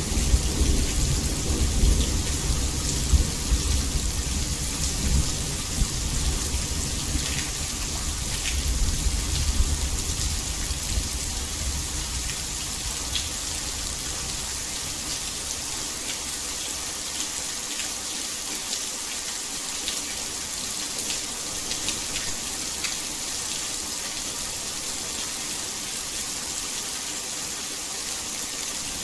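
Heavy rain falling steadily, a dense even hiss, with a low thunder rumble that fades away over the first dozen seconds.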